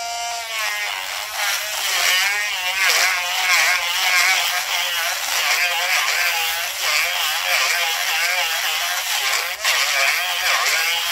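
Cordless Dremel rotary tool with a sanding drum running in the freeze plug bore of a cast-iron Mopar 318 block, sanding off loose paint and rust. Its high whine holds steady at first, then wavers in pitch from about a second in as the drum bites into the bore wall.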